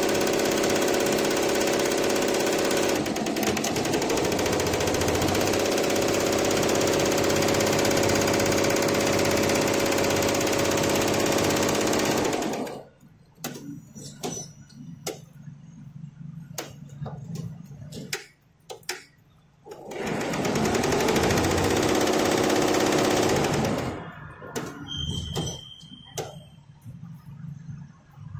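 Multi-head industrial embroidery machine stitching at high speed, a loud, dense, fast rattle of many needles. It stops about halfway through, leaving only scattered clicks, runs again for about four seconds, then stops again near the end.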